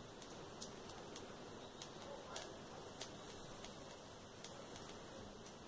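Mini hot glue gun in use, laying glue on paper: faint, irregular small clicks and ticks from the gun and its trigger, over a steady low hiss.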